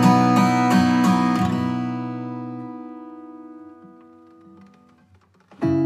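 Acoustic guitar music. Strummed chords ring out and fade almost to silence, then the playing starts again just before the end.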